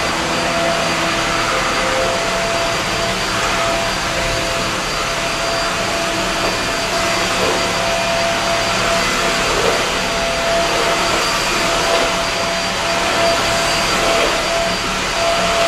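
Corded stick vacuum cleaner running steadily as it is pushed over a tiled floor, its motor a constant hiss with a thin steady whine over it.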